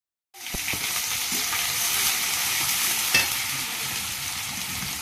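Food sizzling in hot oil in a karahi while being stirred, with the spatula knocking against the pan a couple of times, loudest just after three seconds in. It starts after a brief silent gap.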